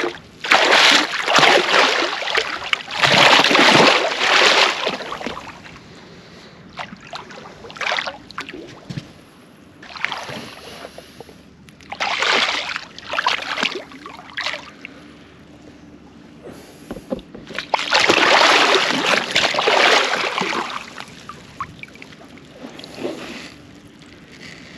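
Large wels catfish thrashing at the water surface on the line, throwing up irregular bursts of splashing. The biggest bursts come in the first few seconds and again about eighteen to twenty seconds in.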